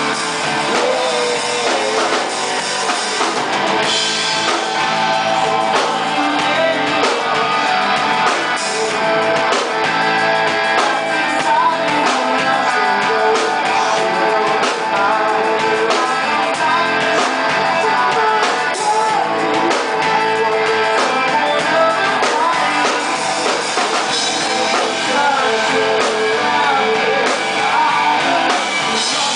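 Live rock band playing loud: a singer over electric bass, guitar and a drum kit, heard from the audience.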